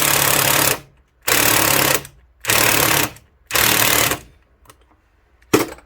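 Cordless power driver running a deck screw into wood. One long run stops just under a second in, followed by three short bursts as the screw is seated, on a battery that the owner says is running down. A single sharp knock near the end.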